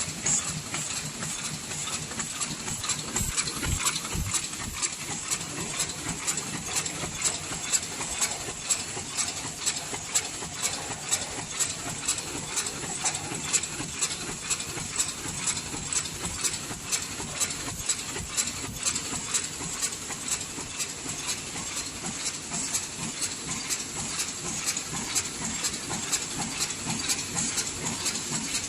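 SM-100 double-wall paper cup sleeve machine running at production speed. It makes a regular clacking about twice a second over a steady high hiss.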